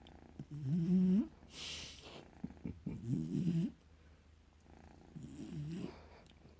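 A cat purring and a dog snoring together, breath by breath: three rumbling breaths about two and a half seconds apart, with a short hissing breath out after the first.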